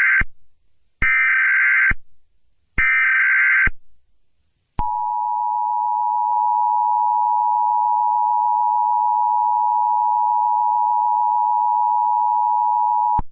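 Emergency Alert System SAME header: the end of one buzzy digital data burst, then two more about a second apart. These are followed by the EAS two-tone attention signal, a steady harsh dual tone held for about eight seconds that cuts off sharply. It heralds an Emergency Action Termination alert.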